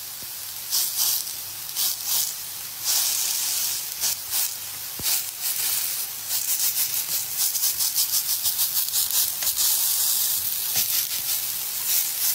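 A chicken and onion stir-fry sizzling in a hot pan while a spatula stirs it, with scraping clicks through the sizzle. It gets a little louder and busier after about six seconds.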